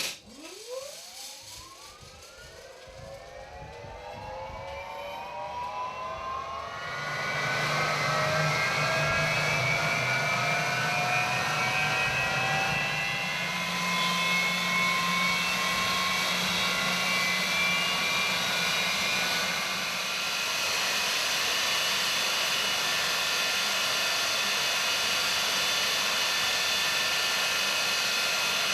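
English Electric Lightning T5's Rolls-Royce Avon turbojet starting up: a whine rises steeply in pitch and grows louder. About seven seconds in, the sound jumps in loudness as the engine lights up, then settles into a steady high-pitched whine over a jet roar.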